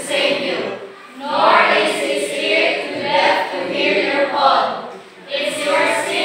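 A mixed group of young men and women singing together as a choir, in phrases broken by two short pauses, about a second in and about five seconds in.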